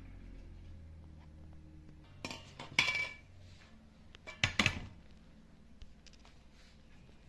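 Kitchenware clinking and clattering in two short bursts, about two seconds in and again midway, one clink ringing briefly.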